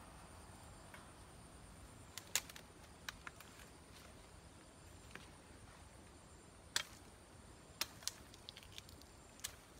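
Scattered sharp snaps and clicks of twigs and branches being stepped on and handled, over a quiet background. The loudest come about two and a half seconds in and again near seven seconds, with a few more towards the end.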